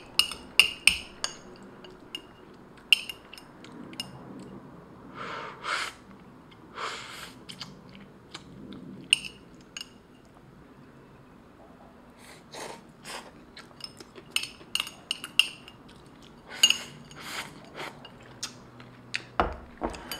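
Metal chopsticks clinking and scraping against a bowl while instant noodles are eaten, with short slurps and sips from the bowl in between.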